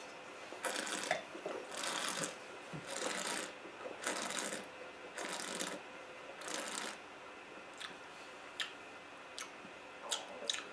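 Mouth sounds of wine tasting: a sip of red wine drawn in and worked around the mouth with air, six short slurps about a second apart, then a few faint mouth clicks near the end.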